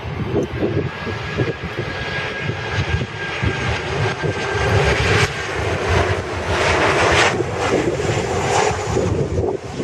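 Jet airliner's engines roaring as it passes, growing louder over the first several seconds, with a thin steady whine above the roar.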